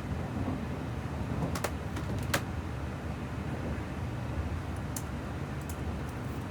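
Steady low rumble of an N700A Shinkansen car running, heard inside the passenger cabin, with a few short sharp clicks at about one and a half, two and a half and five seconds in.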